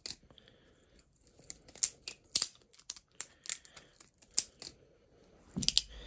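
Butterfly knife (balisong) flipped through a Zen rollover: the handles and blade clack and click against each other in a dozen or so sharp, irregular clicks.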